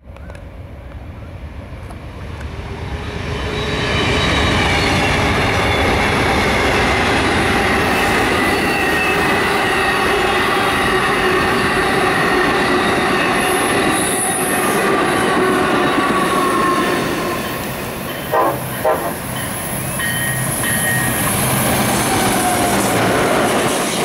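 Amtrak Coast Starlight passenger train passing close at speed: steady rolling of steel wheels on rail, building over the first few seconds, with high wheel squeal tones. About three quarters of the way through, a train horn sounds two short blasts, and a second passenger train, an Amtrak Cascades Talgo set, rolls in near the end.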